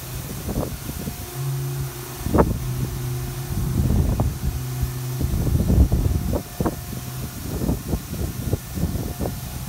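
Wind buffeting the microphone in irregular gusts over a steady mechanical hum from touchless car wash machinery that fades in and out.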